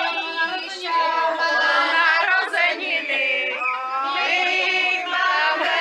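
A group of people singing together outdoors, many voices overlapping at once.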